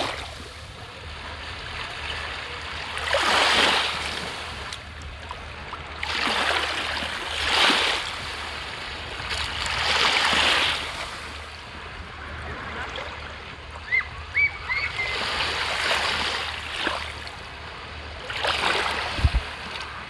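Seawater washing against the shore, small waves surging and receding in swells every three to four seconds. A few short high chirps sound about two thirds of the way through.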